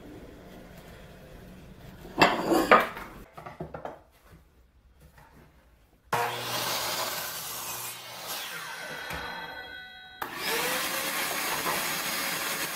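A DeWalt sliding miter saw cutting wooden boards, its loud steady noise starting abruptly about six seconds in. It eases off around nine seconds, then the saw starts up again a little after ten seconds and keeps running. A short loud scuffing noise comes about two seconds in.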